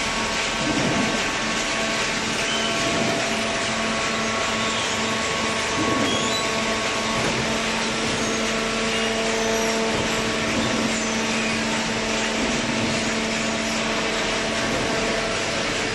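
High-speed cardboard baler running: a loud, steady mechanical noise with a constant hum underneath.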